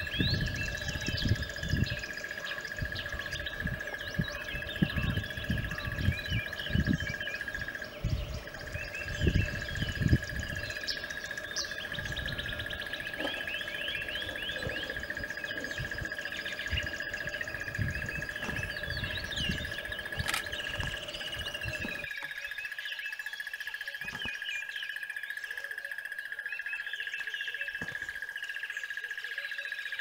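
Many small birds chirping and trilling in a dawn-chorus-like ambience over a steady high-pitched whine. Low rumbling bumps sound until about two-thirds of the way through, then stop abruptly.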